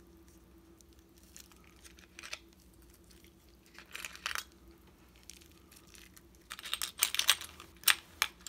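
Handling noise from a rotary tool accessory kit: a plastic case being opened and small bits clicking and rattling against it, in short bursts of clicks and rustling about two and four seconds in and a longer flurry near the end.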